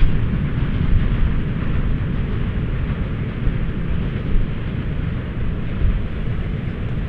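SM42 diesel-electric shunting locomotive hauling a train of loaded open wagons away, a steady rumble of engine and rolling wheels that slowly fades as it moves off.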